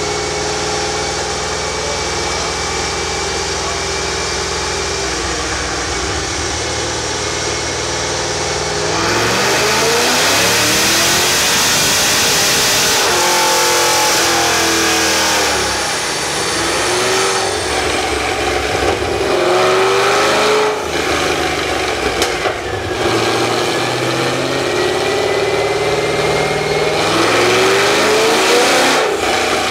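Corvette LS1 5.7-litre V8 running on a chassis dyno, heard at its exhaust. It runs steadily at first, then about nine seconds in the throttle opens and it climbs loudly in pitch for several seconds. Further revs follow, rising and falling, each cut off sharply when the throttle shuts.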